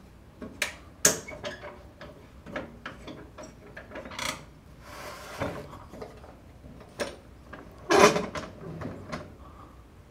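Metal clanks, knocks and clicks as parts and fittings of a Shopsmith Mark V are handled and locked down while the machine is set up as a horizontal boring machine, with a short scrape around five seconds in. The loudest clank comes about eight seconds in.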